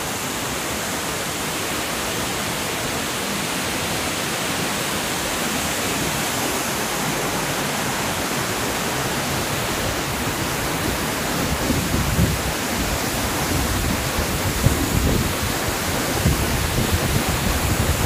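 Steady rushing of a waterfall, water pouring down a rock face in an even hiss. From about eleven seconds in, irregular low bumps and rumbles come in on top.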